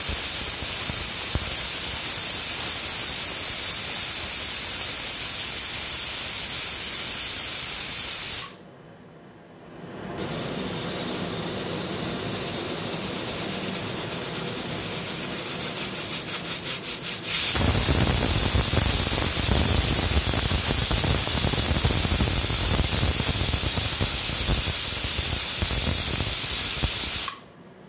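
Aluminium pressure cooker whistling: steam blasts out under the whistle weight in a long loud hiss that stops abruptly, builds back with a rapid flutter as the weight starts to lift, and bursts into a second long whistle about halfway through before cutting off near the end. Each whistle is the weight lifting to vent built-up steam pressure.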